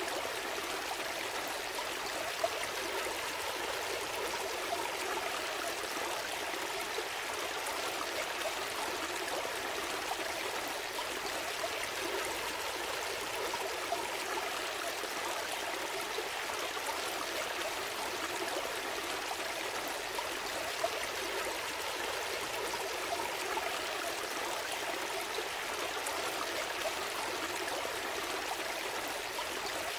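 A gentle forest stream flowing and trickling steadily over stones, a continuous splashing rush with small, irregular splashes.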